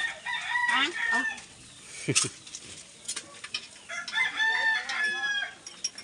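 A rooster crowing twice, each crow a long call of a second or more, with a few sharp clinks in between.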